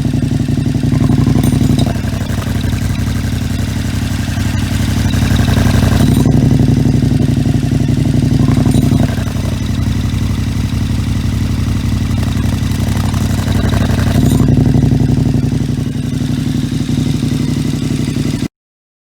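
KTM 1290 Super Adventure's V-twin engine running through a Leo Vince One Evo exhaust with the baffle removed. It idles with a few spells of raised revs, each held for a couple of seconds, and the sound cuts off suddenly near the end.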